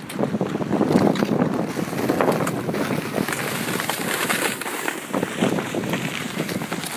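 Ice skate blades scraping and shuffling on rough, scratched natural canal ice in short, uneven strokes, with wind on the microphone.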